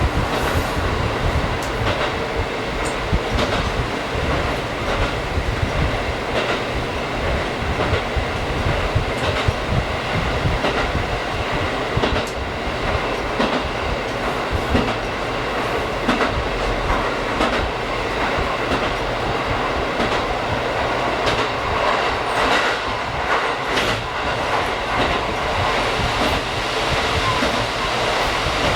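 JR Kyushu KiHa 185 diesel railcar running steadily along the line, with a steady engine and running rumble and the wheels clicking irregularly over rail joints.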